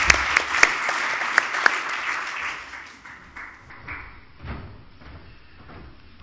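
Audience clapping, which fades out about three seconds in, followed by a few faint knocks.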